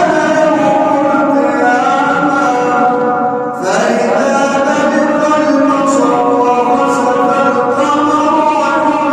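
A solo male voice chanting Quran recitation in a melodic style, holding long, ornamented notes, with a short pause for breath about three and a half seconds in.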